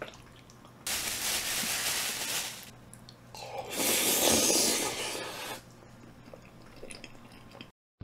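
Two stretches of wet, squishy food noise: saucy tteokbokki sliding out of a plastic container into a bowl about a second in, then eating sounds as it is picked up with chopsticks and eaten, about three seconds in.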